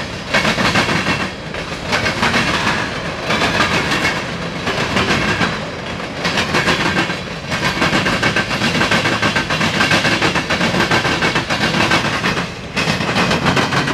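Freight train cars rolling past close by, their wheels clattering over the rail joints in a loud rhythm that swells and dips as each car goes by. A faint high ringing tone from the wheels runs underneath.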